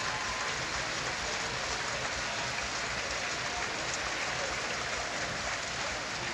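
Spectators in a swimming arena applauding steadily.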